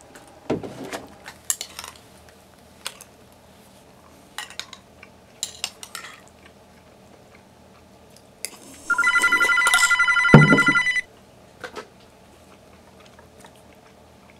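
Metal spoon clinking against a ceramic cereal bowl in short, scattered taps, then a telephone ringing loudly for about two seconds, a bit past halfway through.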